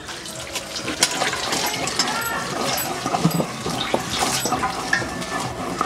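Water poured from a plastic jug splashing over a head of cabbage and into a stainless steel bowl as the cabbage is washed by hand, with small splashes and handling clicks throughout.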